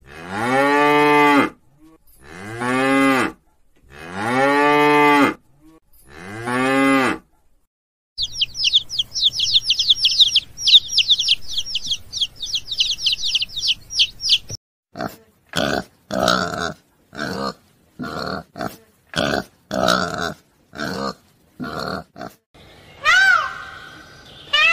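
A series of animal calls: a cow mooing four times in long, pitched calls, then about six seconds of rapid high chirping, then a run of about ten short calls roughly a second apart, and near the end rising-and-falling calls.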